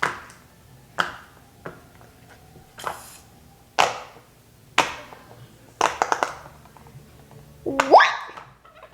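Bubbles of a silicone pumpkin pop-it fidget toy being pressed: sharp single pops about once a second, with several in quick succession around six seconds in. Near the end comes a short rising squeal, the loudest sound.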